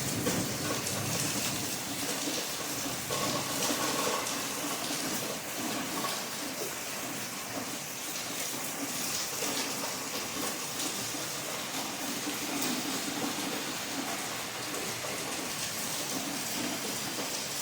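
Rain falling steadily, an even hiss of water with no let-up.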